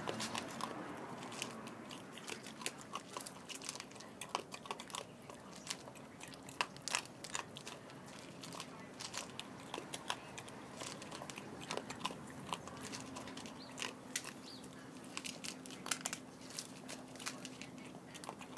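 A cat and a small dog chewing dry kibble: irregular crunches and clicks, close together and uneven throughout.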